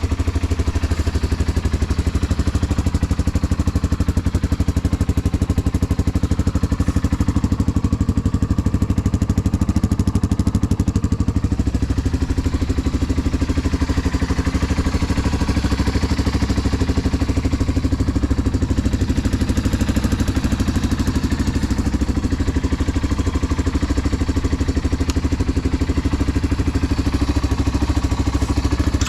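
Yamaha Serow 225's air-cooled single-cylinder four-stroke idling steadily through a Supertrapp up-muffler, running evenly with no abnormal noise.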